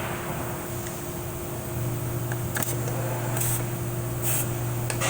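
Short hissing puffs of compressed air, three in a row, blown into a hole in a 4L60E transmission case to pop the servo out, over a steady low hum that grows louder about two seconds in. A sharp tap near the end.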